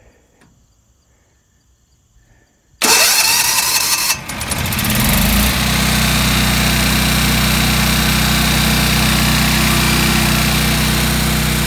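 Generac Guardian 8 kW standby generator's air-cooled engine starting: about three seconds in it cranks loudly for about a second, dips briefly, then catches and settles into a steady, even run.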